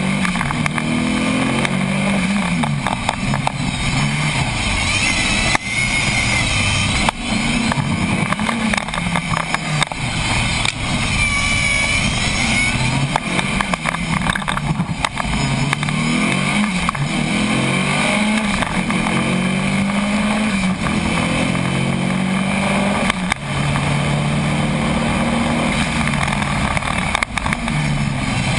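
Rally car's engine heard from on board during a timed run, revving up and easing off over and over, its pitch climbing and falling with the gear changes and a few brief dips in loudness.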